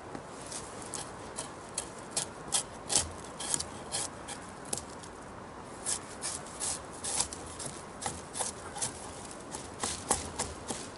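Irregular rustling, crackling and scraping of dry leaves and twigs being handled on the forest floor, with a couple of dull knocks.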